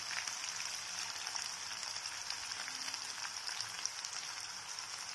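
Hot oil sizzling steadily with fine crackles as a tempering of dried red chillies, small onion, crushed garlic and curry leaves fries in a nonstick kadai.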